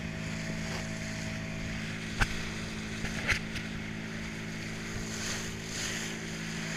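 Motorboat engine running steadily as the boat moves through the water, with water rushing along the hull. Two short sharp noises come about two and three seconds in.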